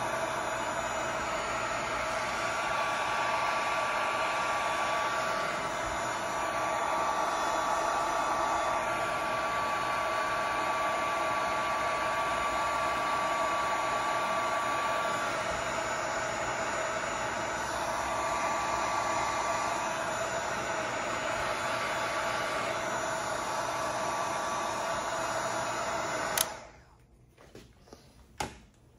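Wagner electric heat gun running, blowing hot air onto the end of a 1-inch crush-proof corrugated suction hose: a steady rush of air with a faint whine. About 26 seconds in it clicks off and the sound stops abruptly, followed by a few light knocks.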